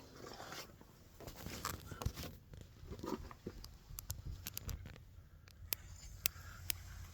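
A cloth rubbing a shellac finish into a turned walnut piece, quiet and dying away after about two and a half seconds, followed by a handful of sharp, light clicks and taps.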